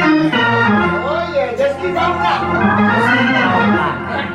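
Organ holding sustained chords, with a voice rising and falling in pitch over it, as in chanted preaching or singing.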